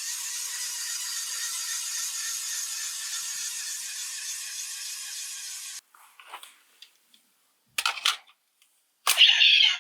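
Electronic sound effect from a toy Kamen Rider transformation belt: a steady high icy hiss that fades slightly and cuts off sharply about six seconds in, followed by a few short crackling bursts.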